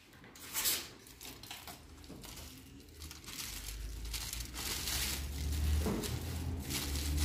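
Aluminium foil crinkling and rustling in irregular bursts as hands press and smooth a foil wrap over a head of freshly bleached hair.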